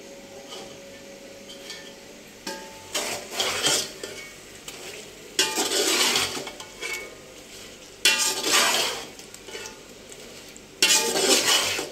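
Metal spoon stirring and scraping chicken masala frying in a large aluminium pot, in four loud bursts of scraping after a quieter start.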